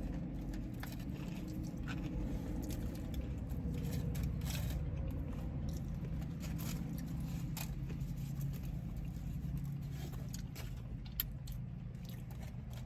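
Steady low hum of a car cabin, with scattered small crunches, clicks and rustles of someone eating fried chicken.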